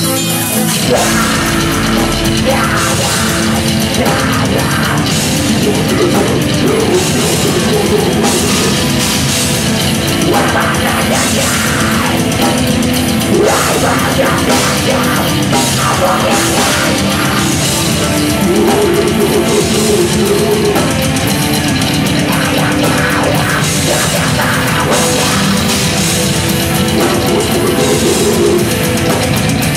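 Live heavy rock band playing loud, with distorted guitar and a pounding drum kit, the full band kicking in about a second in.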